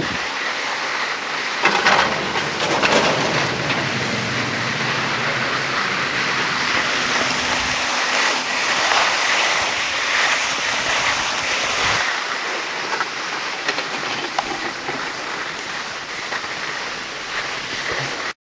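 Steady rushing wind noise on the microphone, cutting off abruptly at the very end.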